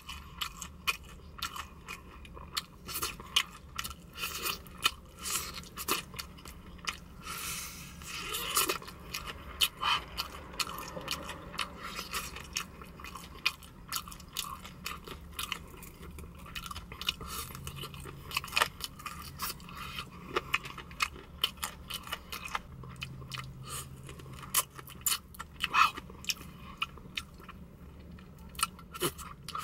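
Close-up chewing and eating mouth sounds as a fried chicken drumstick is gnawed down to the bone: a dense run of sharp clicks, crunches and smacks.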